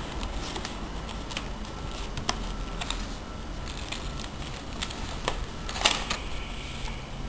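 Stiff paper and card of a pop-up book clicking and crackling as pages are handled and the pop-ups unfold, in irregular small ticks with one longer, louder rustle about six seconds in.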